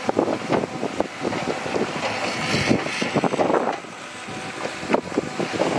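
Komatsu D31P crawler dozer working in rock: its diesel engine runs under a dense, irregular clatter of knocks from the tracks, blade and stones.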